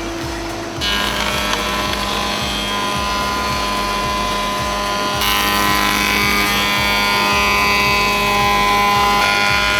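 Background music with a steady low beat and held chords that change about a second in and again about five seconds in.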